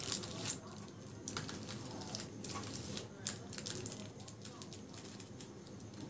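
Thin polythene sheet crinkling and clicking as fingers fold and press it tightly around a roll of sweet: quiet, irregular light crackles, a few each second.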